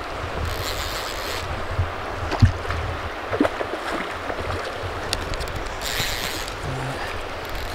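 River water flowing steadily, with scattered knocks and two brief hissing rushes from handling the fly rod, line and reel.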